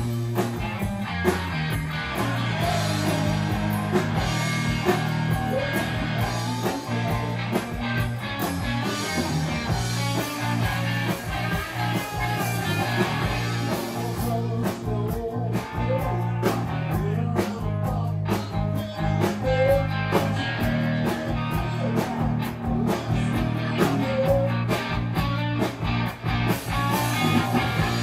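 Live rock band playing: electric bass holding low notes under a drum kit with cymbal hits.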